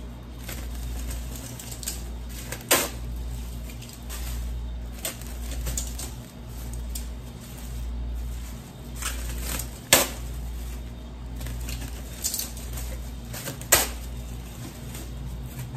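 Thin plastic freezer bags rustling as they are pulled off a roll and torn off one by one, with a few sharp snaps, over a steady low hum.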